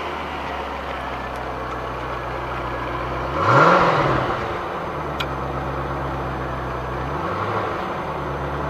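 Chevrolet Corvette C4's LT1 5.7-litre V8 idling steadily, heard from the exhaust. It is revved once in a quick blip a little before the middle, and blipped more lightly again later.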